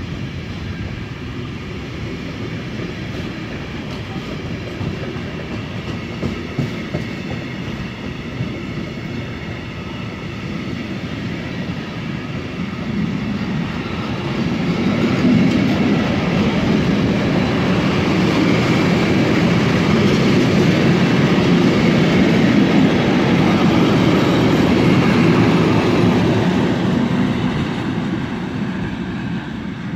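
Freight train wagons rolling past at close range: a steady rumble and clatter of wheels on the rails. It grows louder about halfway through and fades near the end as the last wagons move away.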